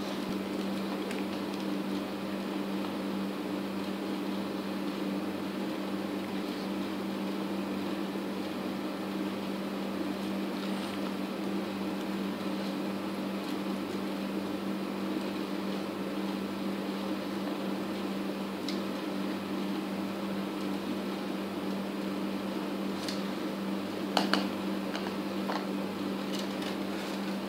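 Steady low mechanical hum of a room appliance running, with a few light clicks near the end.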